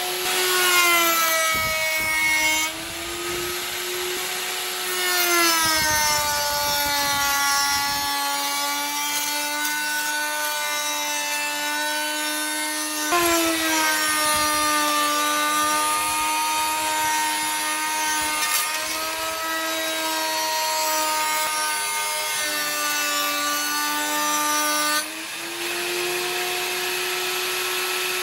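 Electric router mounted under a table running with a steady whine, its pitch dropping each time a wooden piece is fed into the bit and recovering between cuts, with the rasp of the bit cutting wood during the passes. Near the end the load comes off and the whine rises back to its free-running pitch.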